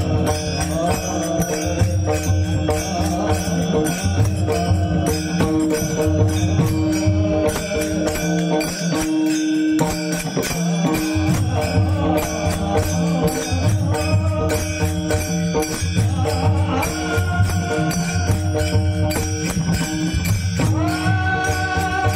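Marathi devotional kirtan music: chanted singing over steady held tones, with a regular low drum beat and small hand cymbals clicking and ringing. A sung note rises and is held near the end.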